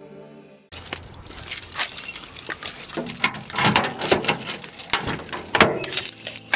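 A bunch of keys jangling in a hand, starting about a second in, with quick clicks and rattles as the door of a Honda Civic coupe is unlocked and pulled open.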